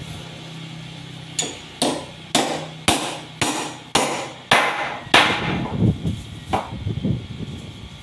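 Hammer striking a mango-wood bench, driving in fasteners: eight sharp blows about two a second, each with a short ring, then a lone blow about a second and a half later among softer knocks.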